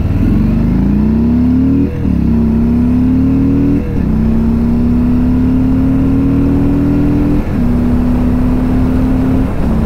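2020 Harley-Davidson Softail Standard's Milwaukee-Eight 107 V-twin under hard acceleration, the engine note climbing in each gear. It drops back four times, about two, four, seven and a half and nine and a half seconds in, as the rider shifts up.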